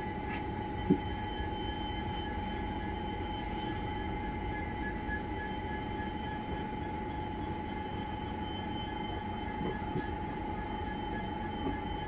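Indian Railways train running along the track, heard from on board: a steady rumble of wheels on rail with a constant high whine over it, and one sharp click about a second in.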